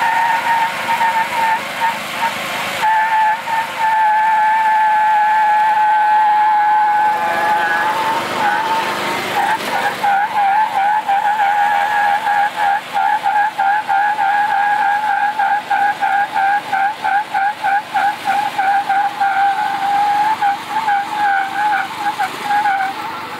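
Riding lawn mower doing a chained burnout on bleach-wet asphalt: the spinning rear tyres squeal in a steady high tone over the engine held at full throttle. About 10 s in, the squeal turns chattering and pulses rapidly as the tyres alternately grip and slip.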